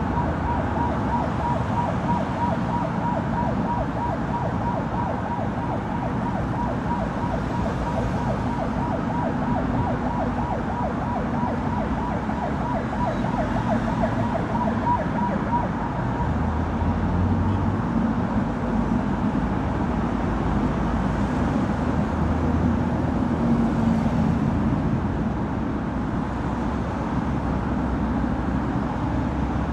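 Steady noise of dense traffic on a multi-lane urban expressway, cars and trucks passing continuously. Through the first half a wavering high tone rides over the traffic and fades out about halfway through.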